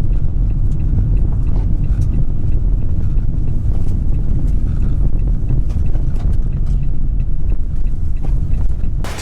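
Car driving, a steady loud low rumble of engine and road noise with faint scattered ticks.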